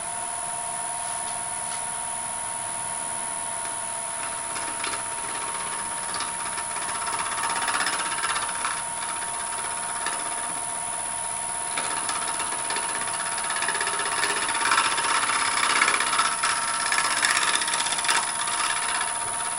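Wood lathe running with a steady motor whine while a hand-held turning tool scrapes and cuts the end face of a small spinning pendant blank; the cutting noise swells around the middle and again over the last several seconds.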